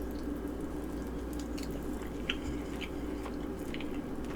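A person chewing and biting food close to the microphone, with small wet clicks and smacks scattered through, over a steady low hum.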